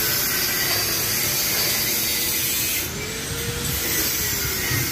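A power tool running steadily, its whine rising and falling slightly in pitch twice.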